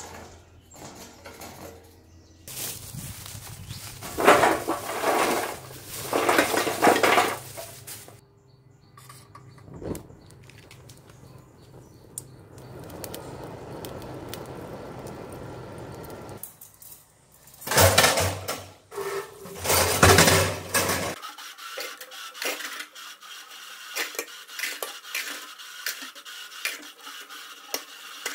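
Metal clattering and clinking in several bouts as a sheet-metal charcoal grill is handled. In the last seconds, thin metal skewers clink against a stainless steel sink under running tap water.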